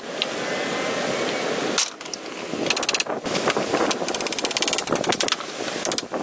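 Hatchet working green wooden poles: a sharp knock a little under two seconds in, then a fast run of clicking taps from about the middle, over a steady rustling hiss.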